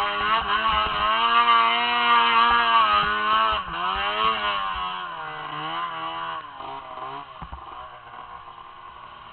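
Arctic Cat M1000 snowmobile's two-stroke engine revving high under load on a steep climb, its pitch wavering up and down. From about halfway through the revs drop and the engine grows much quieter.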